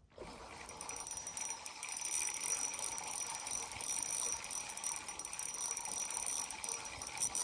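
Spinning reel ticking and whirring steadily as line is worked in against a hooked trout.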